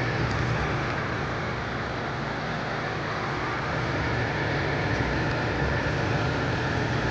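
Steady fan noise with a low hum, from a 3D printer and its activated-charcoal filter fan running.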